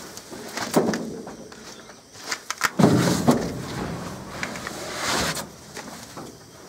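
Wild Asian elephant climbing down out of a transport truck's wooden crate: scattered knocks and scrapes on the crate and truck bed, a heavier thump about three seconds in, then rustling in brush.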